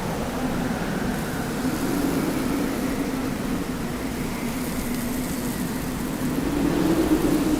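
Desert wind blowing steadily, with a low tone in it that wavers up and down in pitch and swells louder near the end.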